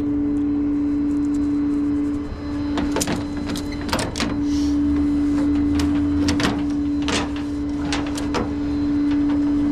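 A steady mechanical whine with a run of sharp metallic clanks and knocks, about seven of them, starting about three seconds in.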